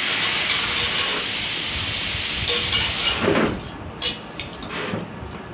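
A steady hiss that cuts off suddenly about three seconds in, followed by a few faint clicks.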